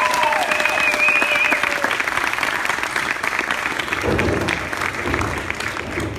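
An audience clapping and applauding. A few held music tones fade out in the first two seconds, and a low rumbling sound comes in about four seconds in.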